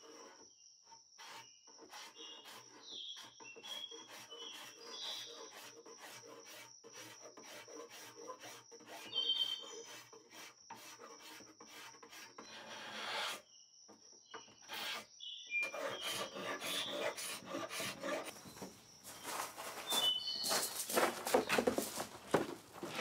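Hand paint scraper pulled in short, repeated strokes over painted wood, scraping off old green paint. Birds chirp faintly in the background.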